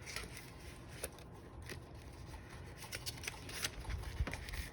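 Paper being handled: faint rustles and small taps as the pages of a decorated composition notebook are turned and touched.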